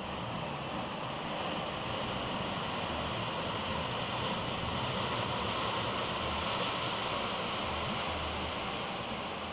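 Waves breaking and water rushing in a steady wash of surf, swelling a little in the middle.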